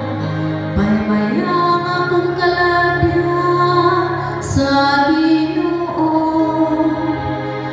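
A woman singing a slow, chant-like responsorial psalm through a church microphone, over steady held low notes.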